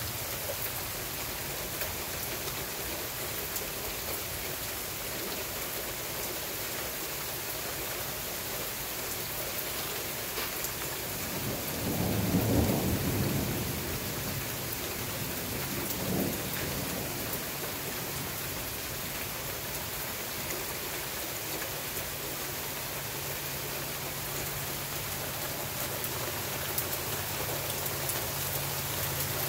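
Steady rain falling in a severe thunderstorm, with a low rumble of thunder swelling about twelve seconds in and a smaller rumble a few seconds after.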